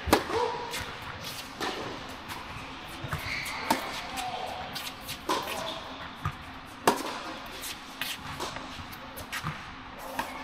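Tennis rally: a serve, then the ball struck back and forth with rackets, a sharp hit about every one and a half seconds, some louder near hits and some fainter far ones, over a steady low hum.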